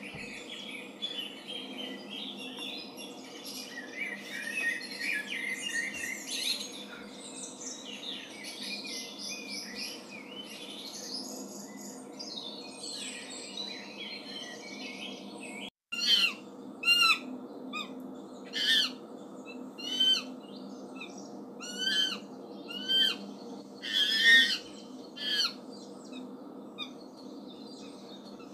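Many small birds chirping and twittering together over a steady low hum. After a cut about halfway through, a single bird calls over and over, a short clear rising-and-falling call roughly once a second.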